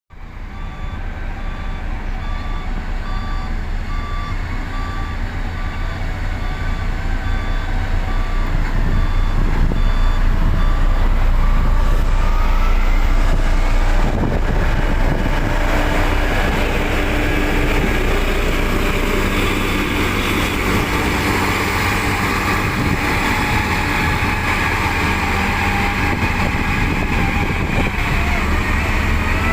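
Heavy road-construction machine's diesel engine running, with a reversing alarm beeping at an even pace until about a third of the way through. After that the machine noise grows louder and harsher.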